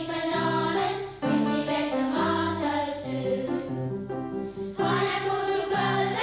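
A jaunty song about oranges, sung by voices over a bouncy instrumental accompaniment.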